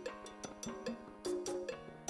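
Quiet background music: held notes with light percussive taps.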